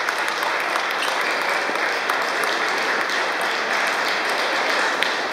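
Steady din of a big table tennis hall: many balls clicking on tables and bats at once, merging into an even crackle much like applause. One sharper knock comes near the end.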